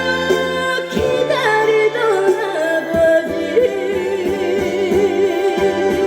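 Trot song sung live by a female singer through the stage sound system over backing accompaniment with a steady beat; from about halfway in she holds a long note with a wide vibrato.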